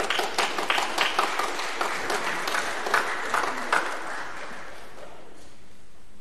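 Congregation applauding; the clapping thins out and dies away about four seconds in.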